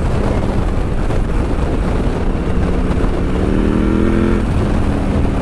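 KTM 890 SMT's parallel-twin engine running through a Vandemon titanium aftermarket exhaust while riding, its pitch climbing steadily under acceleration from about two seconds in, then dropping away after about four and a half seconds.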